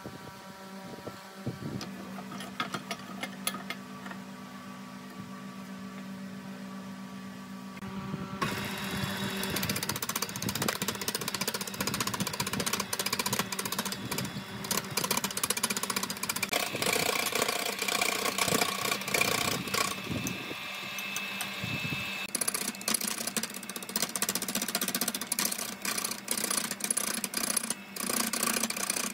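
A wood lathe's electric motor humming steadily, then from about eight seconds in a turning tool cutting into a rough, spinning log: a loud, rough scraping full of rapid knocks as the out-of-round wood strikes the tool, which shows the log being roughed down to round.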